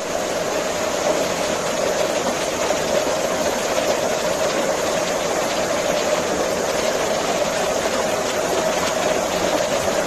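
Steady rushing of water cascading down rocks, an even, unbroken noise at a constant level.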